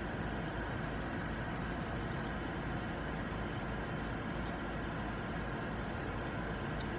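Steady rush and hum inside a car cabin with the engine running and the air-conditioning fan blowing, with a few faint clicks.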